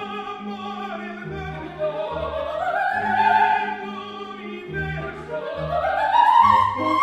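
Background music in a classical style: a melody of long held notes that swells and glides upward twice, over a bass line stepping between notes.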